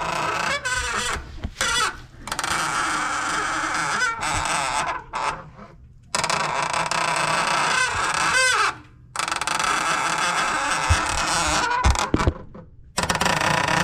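Hydraulic clutch slave cylinder of a 1994 Chevrolet S10 squealing and groaning with a sliding pitch in repeated strokes of one to three seconds as the clutch pedal is pressed and released. This is the noise of a failing slave cylinder, which calls for replacing the whole master–slave hydraulic unit.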